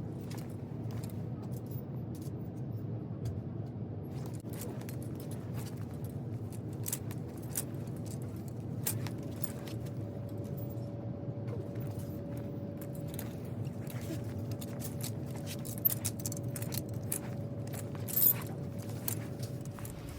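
Thrift store room tone: a steady low hum with scattered light clicks and rattles, and a faint steady tone that comes in about halfway through. Two brief louder knocks come near the end.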